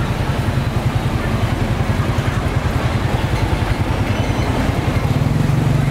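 A motorcycle engine running close by over general street-market noise, getting louder near the end.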